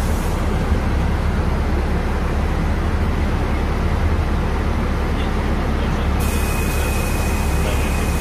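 Cabin noise of a moving NEFAZ 5299 city bus: a steady low hum with road rumble. About six seconds in, a thin steady high whine joins it.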